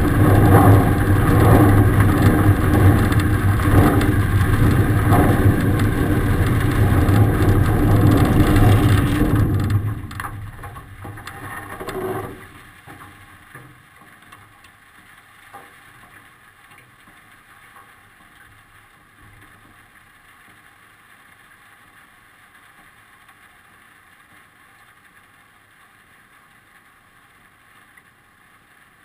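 Zenair CH 701 ultralight's engine and propeller running steadily for about the first ten seconds. The sound then drops away, with a short louder swell near twelve seconds, leaving only a faint hiss of wind.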